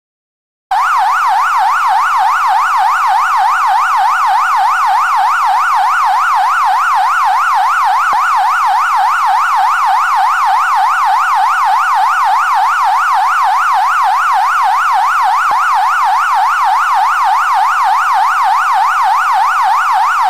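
Electronic countdown-timer alarm sounding as the countdown ends: a loud siren-like tone that starts about a second in and warbles rapidly up and down, about three sweeps a second.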